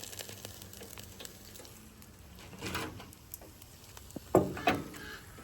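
Faint crackle of frying in hot peanut oil, with scattered small ticks, a brief swell about three seconds in and two sharp knocks about four and a half seconds in.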